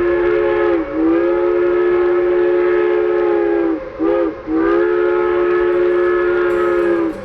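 A train sounding its multi-note chord whistle in the grade-crossing pattern: a long blast ending about a second in, a second long blast, a short toot about four seconds in, then a final long blast that cuts off near the end. The pitch sags briefly as each blast is released.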